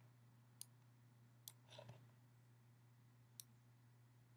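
Near silence with a low steady hum, broken by three faint sharp computer-mouse clicks as the view is scrolled.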